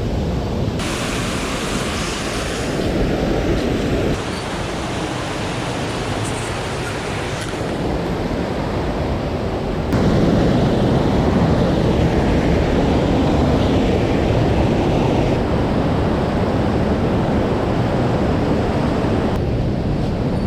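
Rushing water of a mountain stream: a steady, loud wash of noise that shifts abruptly in tone and loudness a few times as the shot changes.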